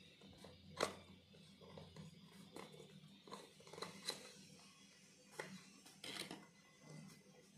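Faint handling of a cardboard smartwatch box and its insert as the watch and strap are pulled out: scattered light clicks and taps of cardboard and plastic, the sharpest about a second in, over a low steady hum.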